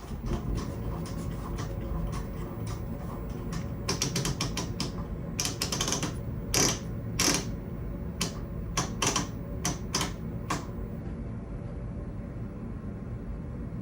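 Irregular mechanical clicks and knocks, most between about four and ten and a half seconds in, from handling the controls and chassis of a powered-up 1965 RCA Victor tube television, over a steady low hum.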